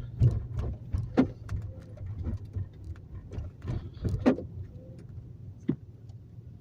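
Car interior: a steady low engine and road drone, with scattered light clicks and taps at irregular moments.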